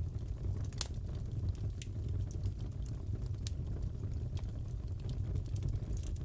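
Crackling fireplace: a steady low rumble of burning logs with scattered small crackles and pops, one sharper pop about a second in.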